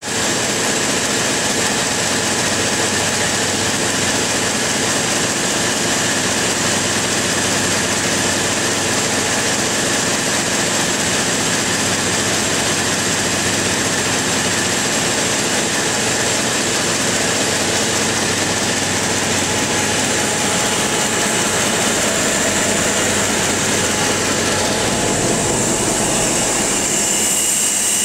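Large engine-generator set of a waste-gasification power plant running steadily at about 600 rpm: a loud, even mechanical din with a faint high whine over it.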